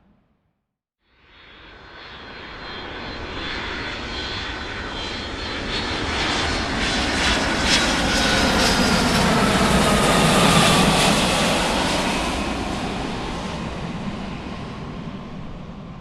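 A large fixed-wing aircraft flying past. Its engine sound starts about a second in, builds steadily to a peak past the middle, then fades, and high whining tones drop in pitch as it goes by.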